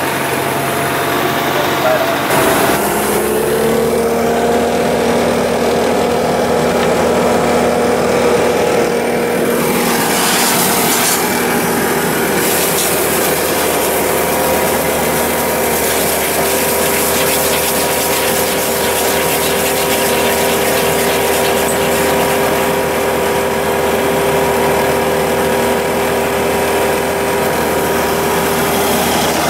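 Ditch Witch JT9 horizontal directional drill running steadily under load while boring with drilling mud pumping, a continuous engine note with a steady whine over it; the pitch steps up about two seconds in.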